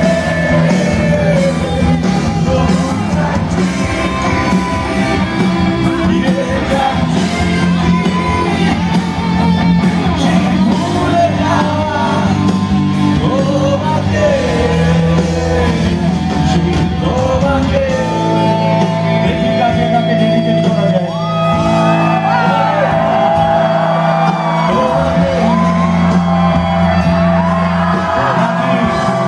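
Live rock band playing loud: a male lead vocalist singing and shouting over electric guitars, bass and drums, heard from the audience in a large hall. About two-thirds of the way through a long steady high note comes in and is held to the end.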